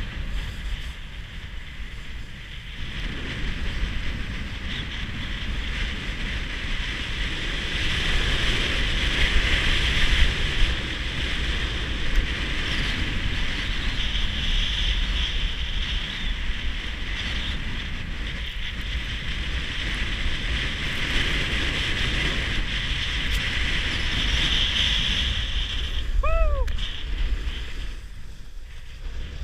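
Wind buffeting the microphone of a body-worn action camera, over the steady hiss and scrape of a rider sliding fast down a groomed, hard-packed snow slope, swelling and easing as the turns go. Near the end there is a brief high pitched sound.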